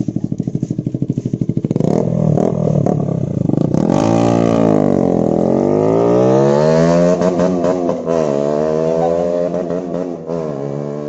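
KTM Duke single-cylinder motorcycle engine running with its exhaust removed. It idles in even, lumpy pulses, is revved up about two seconds in, drops back briefly around five seconds, then is revved again and held at raised revs.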